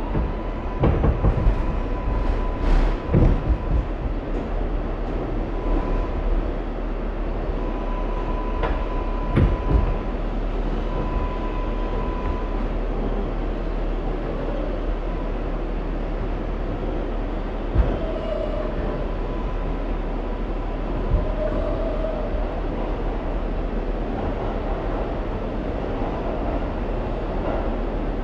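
R188 subway train standing in an underground station with its doors open, its equipment giving a steady hum and hiss. A thin high tone comes and goes over the first twelve seconds or so, and there are a few knocks in the first four seconds, then single sharp clunks around 18 and 21 seconds in.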